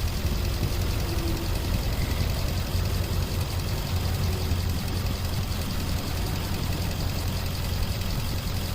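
Nissan Armada's 5.6-litre V8 idling steadily, heard from the open engine bay. The engine has a logged cylinder 8 misfire (P0308).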